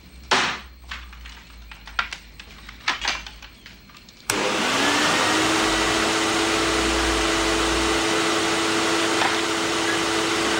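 A few short knocks and handling sounds, then about four seconds in a vacuum cleaner is switched on. Its motor spins up quickly to a steady whine over a rush of air.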